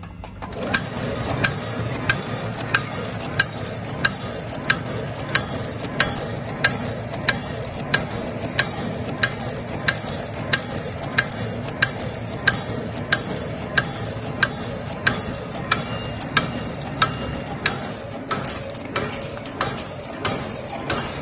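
Automatic volumetric-cup sachet packing machine for nuts starting up and running: a steady mechanical running noise with a faint high whine, and a sharp click at a regular beat of about one and a half a second from its packing cycle.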